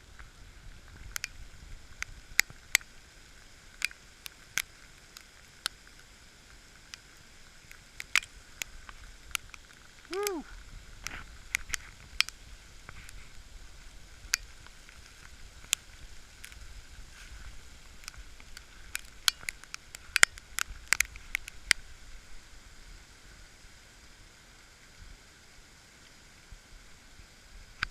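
Snowflakes and ice pellets striking a GoPro Hero 3's microphone: irregular sharp ticks and clicks, some loud, over a low rumble. About ten seconds in there is one short pitched sound that rises and falls.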